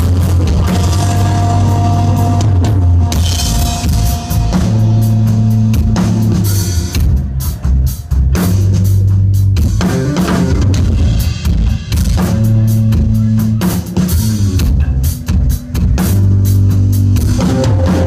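Live rock band playing loudly: electric guitar, bass guitar and a drum kit, with held bass notes that change every second or two under steady drum hits.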